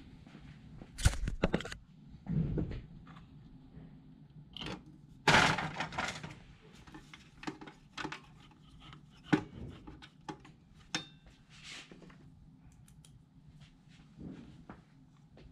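Scattered clicks, knocks and rattling handling noises from hands working parts inside a laser printer's sheet-metal frame while refitting the swing plate assembly. The loudest burst comes about five seconds in.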